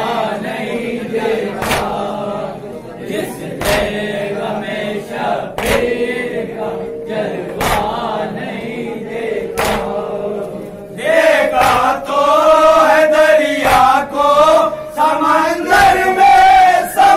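Men's voices chanting a Shia mourning salaam in chorus, with a sharp hand slap about every two seconds. About eleven seconds in, the chant gets louder and higher and the slaps come faster.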